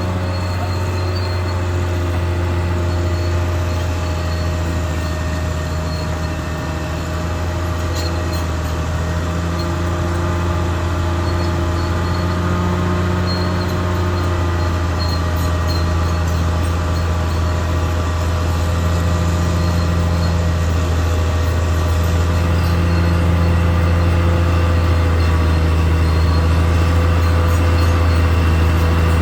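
Caterpillar D6R XL bulldozer running steadily: a deep, continuous drone with steady whining tones above it, growing a little louder over the last third.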